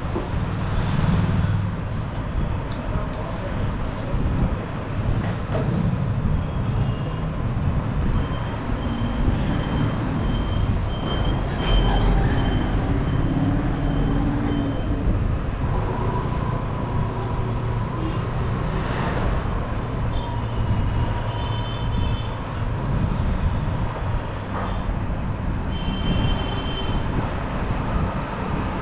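Steady rumbling background noise like road traffic, with a few faint brief high tones over it.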